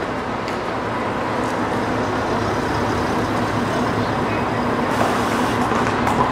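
Steady vehicle engine running, mixed with street traffic noise.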